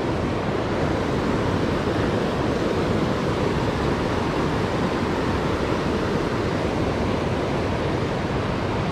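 Steady rush of flowing river water, an even noise that holds at one level throughout.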